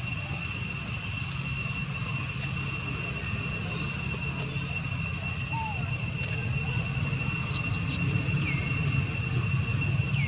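Steady high-pitched drone of insects, several unbroken tones at once, over a low steady rumble, with a few faint short chirps about halfway through and again near the end.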